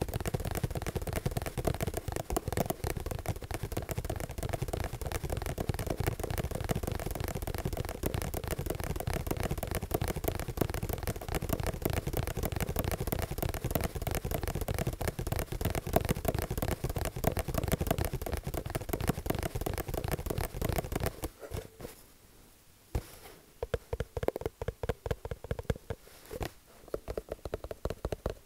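Fast, continuous ASMR-style tapping, many taps a second. About three-quarters of the way through it breaks off briefly and goes on as sparser, separate taps.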